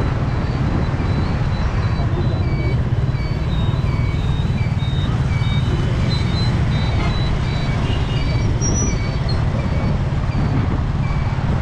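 Steady rumble of passing street traffic, with a run of short, high beeps repeating about every two-thirds of a second over it.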